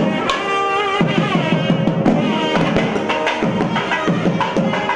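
Music: a held, wavering melodic line over quick, sharp drum strokes.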